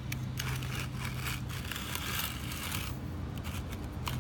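Hands scraping and rubbing against a clear plastic bowl and a soft ball of dough bait, with a few small clicks, over a steady low hum.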